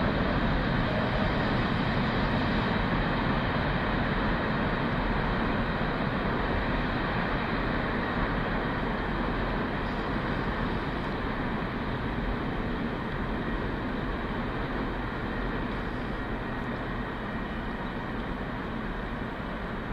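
Empty ballast hopper cars rolling along the track and moving away, a steady wheel-on-rail rumble and hiss that slowly fades.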